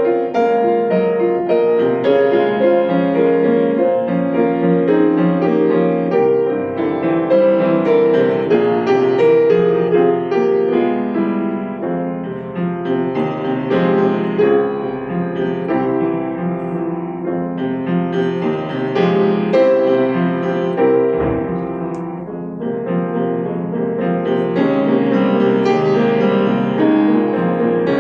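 Solo piano music, many notes ringing over one another, softening briefly twice before growing fuller again.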